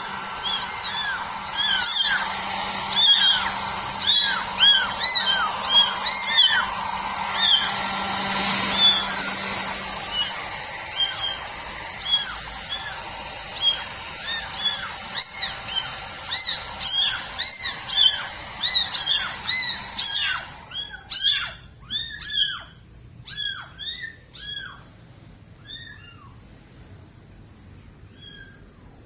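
Kittens mewing over and over in short, high-pitched cries, several voices overlapping, over a steady hiss that drops away about two-thirds of the way through; after that the mews continue alone and thin out near the end.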